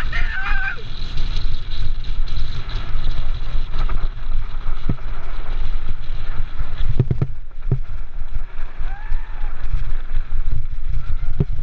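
Steady rumble and rattle of a gravity-driven mountain cart's wheels rolling fast over a gravel road, muffled through the camera's closed waterproof housing, with a few sharp knocks around seven seconds.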